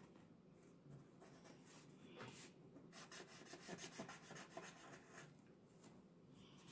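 Faint strokes of an orange Sharpie felt-tip marker on paper as short sprinkle dashes are drawn, with a quicker run of strokes about three to four seconds in.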